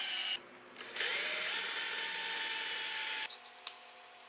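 Stanley cordless drill boring into oak through a drill-guide jig. It runs, stops just under half a second in, starts again about a second in with its whine rising as it spins up, and stops a little after three seconds.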